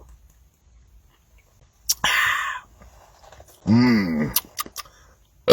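A man drinking carbonated soda and belching. There is a click and a short breathy hiss about two seconds in, then a short voiced sound that rises and falls in pitch near four seconds, and a loud belch begins right at the end.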